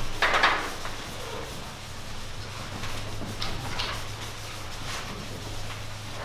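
Chalk writing on a blackboard: a longer scrape at the start, then a few short scratches and taps, over a steady low room hum.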